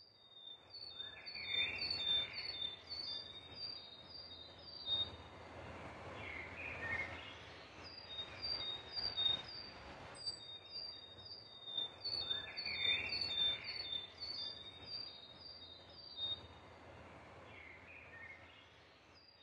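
Birdsong ambience: rapid series of high, repeated chirps over a soft outdoor hiss, the same passage coming round again about ten seconds later, as in a looped nature-sound recording.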